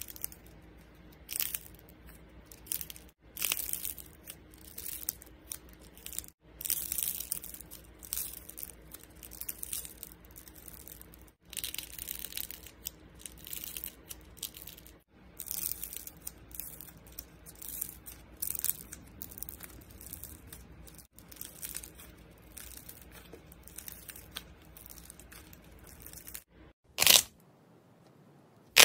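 Crunchy slime shaped like peppermint candies and candy canes being squeezed and torn by hand: repeated irregular crackling and crunching, loudest in a burst near the end.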